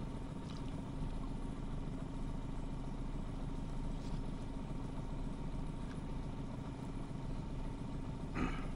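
A small boat's motor running steadily at low speed with a constant hum as the boat eases along through the water. A short burst of noise comes near the end.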